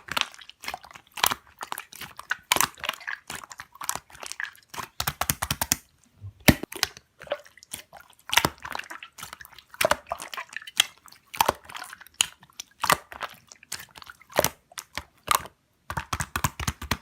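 Slime being squeezed and pressed by hand, making dense, irregular crackling and popping clicks with a brief pause about six seconds in.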